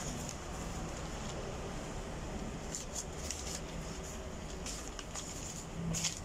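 Newspaper being handled, a few brief, faint paper rustles and crackles over a steady low background hum.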